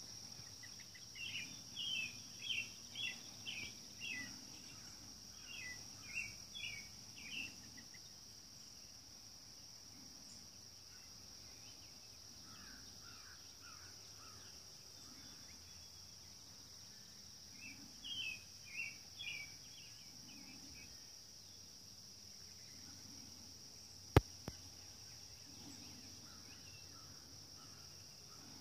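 A steady high insect trill, with a bird calling in two quick runs of short chirps. One sharp click near the end is the loudest sound.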